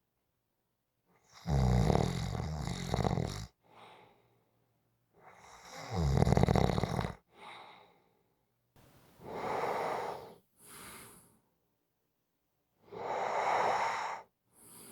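Someone snoring in slow breaths: four loud snoring inhales a few seconds apart. The first two have a low rattle and the later two are more airy, and each is followed by a short, fainter exhale.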